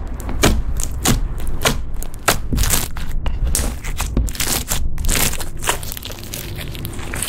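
Glossy slime studded with foam beads being squeezed, folded and stretched by hand: a run of sharp, wet squelching pops and clicks, several a second, as the slime sticks and pulls apart and trapped air pockets burst, thickest in the middle.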